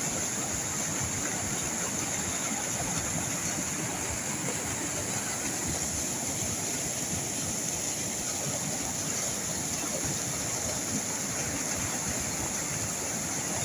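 Floodwater from a river in spate pouring over a stone-and-lime dam spillway and churning in the pool below: a steady, unbroken rushing.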